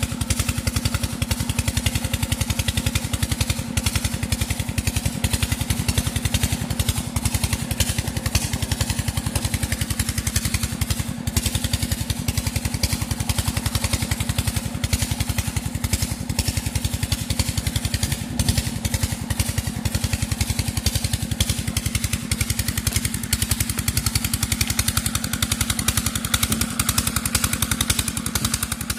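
Small engine running steadily, with a fast, even chugging beat over a steady low hum.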